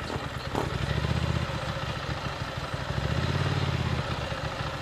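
Ducati motorcycle's V-twin engine running at low speed as the bike rolls slowly. It swells louder twice, about a second in and again about three seconds in.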